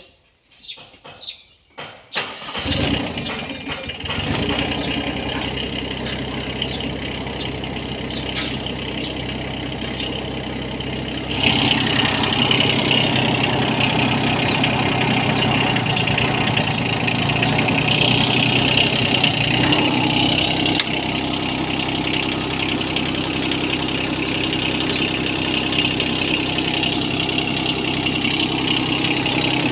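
Diesel engine of a Lovol FR18E2-U mini excavator cranking and starting about two seconds in, then idling steadily after its oil change. The engine sound turns louder and brighter a little over a third of the way through.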